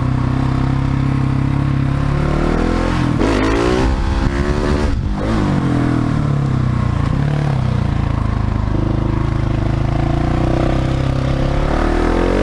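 Husqvarna 701 Supermoto's single-cylinder engine running under way at low speed. The revs rise and fall about three to five seconds in, then settle to a steady run and climb again near the end.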